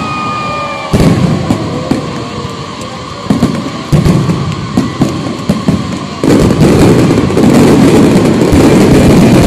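Fireworks display: sharp bangs of aerial shells bursting about a second in and again around three to four seconds in, with a high falling whistle at the start. From about six seconds in the shells crowd together into a dense, continuous crackling barrage.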